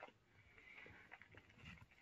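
Near silence, with a faint click at the start and a few faint ticks and a soft hiss.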